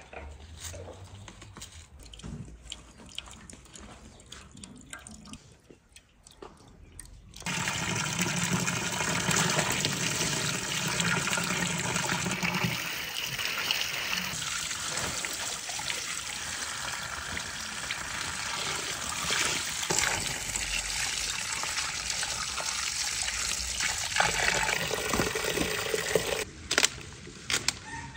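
Water splashing in a metal basin as long red and green sweet peppers are washed by hand. It starts suddenly about seven seconds in after a quiet stretch, runs steadily, and stops shortly before the end.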